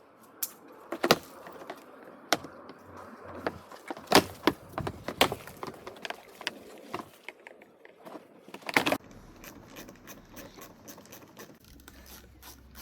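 Irregular clicks, taps and knocks of hand work on plastic car trim and tools, the loudest few about four to five seconds in and near nine seconds, then a quicker run of small clicks.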